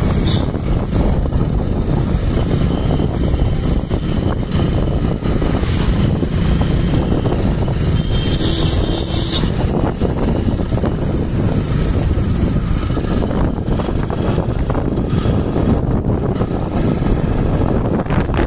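Wind buffeting the microphone together with the engine and road noise of a moving two-wheeler, a steady low rumble. A brief higher-pitched sound comes through about eight seconds in.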